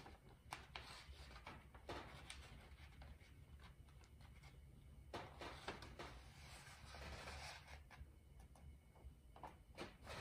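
Faint rustling and crinkling of a large sheet of washi (Japanese paper) being laid over a shoji frame and smoothed by hand, with a few soft crackles and a longer rustle near the end.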